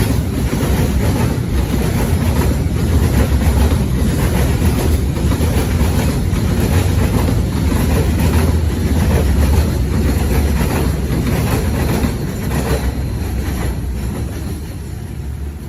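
A train passing, its wheels clacking over the rail joints in an even rhythm. The sound falls away over the last few seconds as it goes by.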